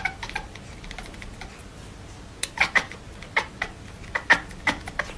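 A domestic cat making short sounds among a run of irregular sharp clicks, which begin about halfway through.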